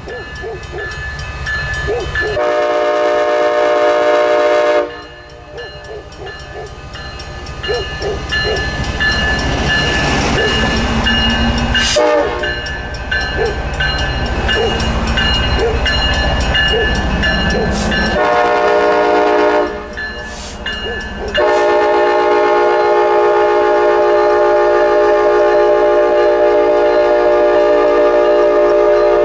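Union Pacific diesel freight locomotive horn sounding as the train approaches and passes. It gives a blast of about two and a half seconds, then a short blast, then a long blast that holds to the end, with engine and wheel rumble in the gaps.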